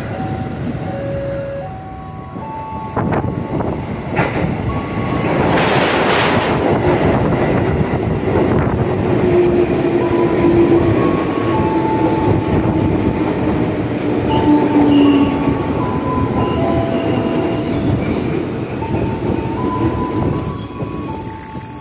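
Electric commuter train running on the rails, with continuous rumbling wheel noise. A short hiss comes about six seconds in, a slowly falling whine and squealing tones run through the middle, and high steady squeals come near the end as the train moves along the station platform.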